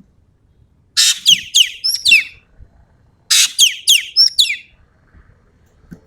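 Ekek keling songbird singing in full voice: two loud phrases about two seconds apart. Each opens with a harsh burst and runs into a quick string of high, sharply falling whistled notes, the rapid 'tembakan' shots that keepers use as song material.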